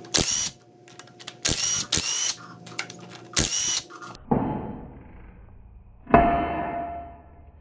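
Cordless impact wrench running in three short bursts as it backs out the 3/4-inch bolts on a Corporate 14 Bolt axle's shaft flange. It is followed by two ringing hammer blows from a hand sledge on the flange to break it loose from its sealant; the second blow is the loudest.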